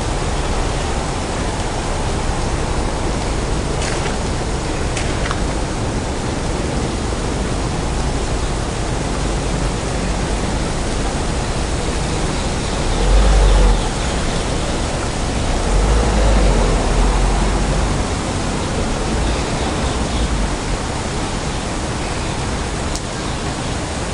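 Steady, even hiss of a wet city street after rain, with two low rumbles a little past the middle.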